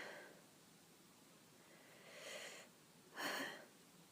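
A person breathing through the nose: a soft breath about two seconds in, then a louder, sharper sniff near the end, as dust starts to tickle the nose.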